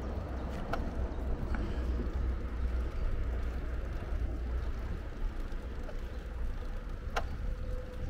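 Wind and road noise from a moving bicycle, picked up by a handlebar-mounted camera: a steady low rumble with three sharp clicks spread through it.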